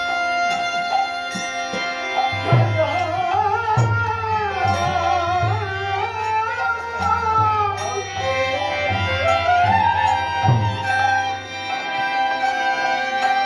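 Devotional kirtan music: a hand drum comes in about two and a half seconds in, over regular small-cymbal strokes and a held drone. A wavering melody line runs over the top.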